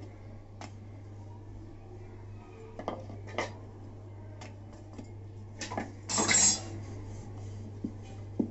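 Dough being rolled out on a metal rolling board: scattered knocks and clinks of the wooden rolling pin and hands against the board, with a louder clatter about six seconds in, over a steady low hum.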